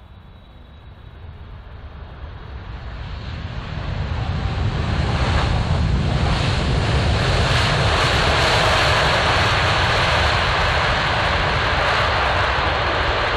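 Boeing 747 freighter on its landing rollout: the noise of its four turbofan engines, which fits reverse thrust just after touchdown. It swells over the first five seconds, then holds loud and steady.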